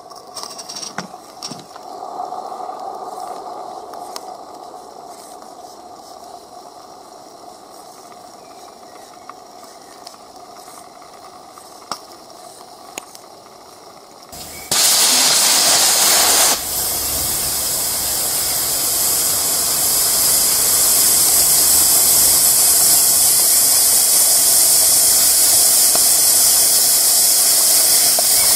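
Live-steam garden-railway locomotive (Regner U 11) hissing steam. After a quieter stretch with a few faint clicks, the hiss starts suddenly about halfway through, is loudest for about two seconds, then carries on steadily.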